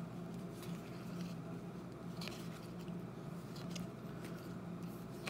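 Baseball cards being slid one behind another in the hand: faint soft ticks and rustles of card stock over a steady low hum.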